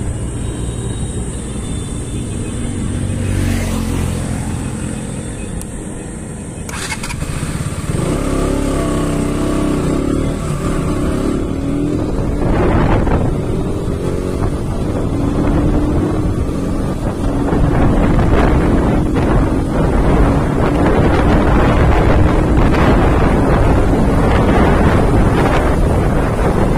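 KTM RC125's single-cylinder four-stroke engine running at a stop, then pulling away and accelerating, its note climbing and growing louder. Wind rush builds with speed.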